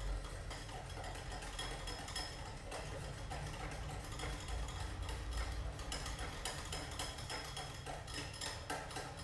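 Wire whisk beating oil into a liquid yogurt-and-sugar cake batter in a glass bowl, its tines clicking quickly and steadily against the glass.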